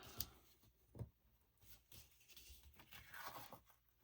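Faint handling sounds of washi tape being pressed and smoothed down along a paper edge: a soft tap about a second in and a light rustle near the end.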